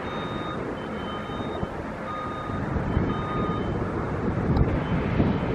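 Reversing alarm on construction equipment beeping about once a second, each beep about half a second long, over wind buffeting the microphone.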